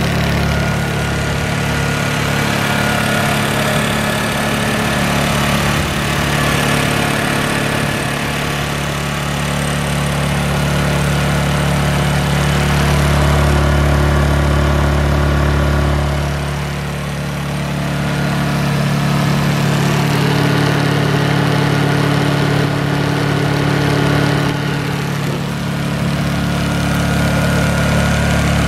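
Honda EU2000i inverter generator's single-cylinder four-stroke engine running steadily, growing a little louder in the middle and dipping briefly twice.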